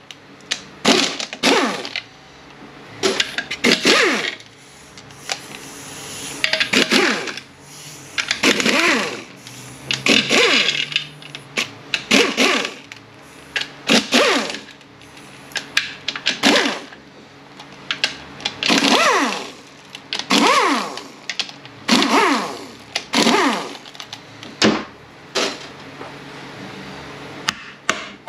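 Handheld power tool running in short bursts of about a second, over and over, its motor pitch rising and falling with each burst as it spins out transmission bolts one after another.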